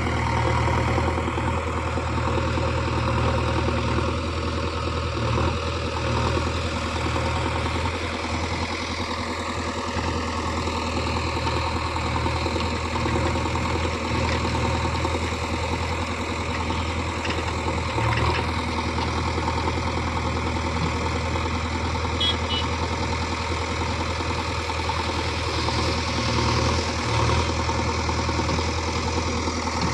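JCB 3DX backhoe loader's diesel engine running steadily, with a brief knock about eighteen seconds in.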